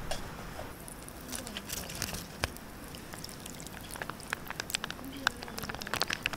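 Irregular small clicks and taps, coming thicker and faster from about four seconds in.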